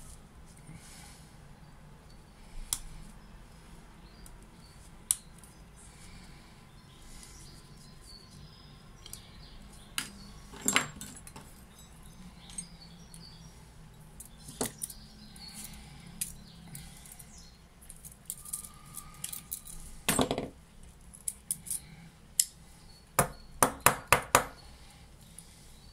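Small metal clicks and taps from the parts of a Saffa 10 pocket lighter being handled and worked by hand, scattered and irregular, with a quick run of about five sharp clicks near the end.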